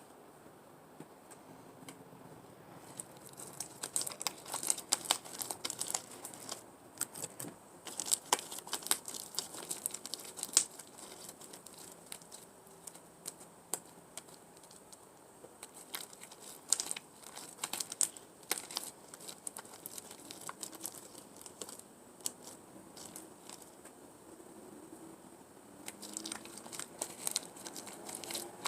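Beaded glue slime being kneaded and squeezed by hand, making sticky crackling and clicking in irregular spells with quieter pauses between.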